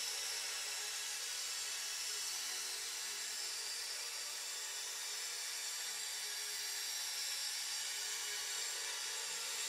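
Electronic synthesizer music: a steady, high, hissing shimmer of many sustained tones with no bass, holding level throughout.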